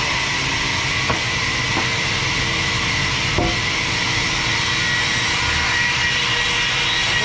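Sawmill band saw running with a steady high whine over continuous machine noise. Two sharp knocks come about one second and three and a half seconds in.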